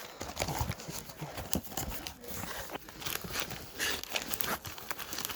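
Crumpled newspaper packing rustling and cardboard being handled, with a string of irregular light knocks and crinkles as boxed figures are unpacked.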